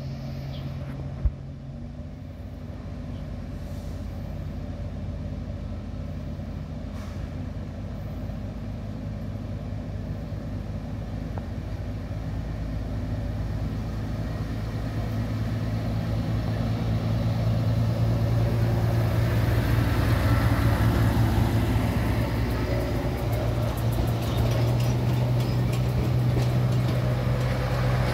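Diesel engines of a Plasser & Theurer track maintenance train, an 08-32 tamper followed by a DGS 62 N dynamic track stabilizer, running with a steady low hum as the machines roll slowly past, growing louder as they come alongside. Wheels clatter over the rails in the last third, and there is one sharp click about a second in.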